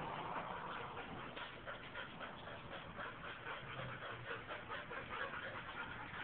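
Two dogs play-fighting on a hard floor: a steady run of quick scuffles and clicks from their feet, with small dog noises mixed in.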